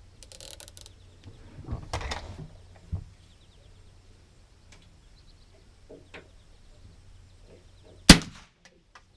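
A single sharp rifle shot about eight seconds in, the loudest sound, with a short echo trailing it: a sighting-in shot while the scope is being zeroed. Before it come a faint rustle of handling and a small click.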